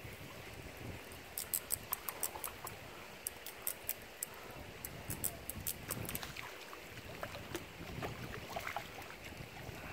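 A small hooked fish splashing and thrashing at the water's surface as it is played in on a fishing rod; the angler takes it for a tilapia. Irregular sharp, high ticks run through the first six seconds or so.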